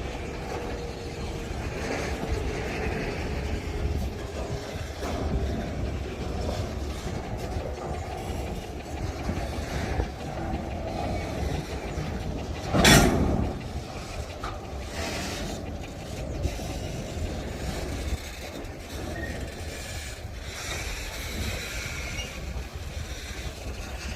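Freight train wagons rolling past, with a steady rumble and clatter of wheels on the rails. About halfway through there is one short, loud thump.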